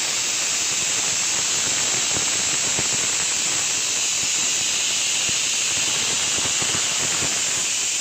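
Stovetop pressure cooker whistling: a loud, steady, high hiss of steam escaping through the weight valve, the sign that the cooker has reached full pressure while cooking rice and dal.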